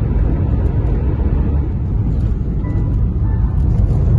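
Steady low road and engine rumble inside a moving car's cabin, with music playing over it.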